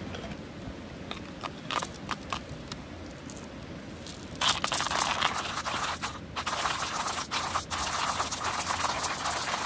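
Manual hand-crank coffee grinder crushing whole coffee beans. A few scattered clicks and knocks in the first seconds, then from about four and a half seconds in, steady crunching grinding as the crank is turned, with a brief pause partway through.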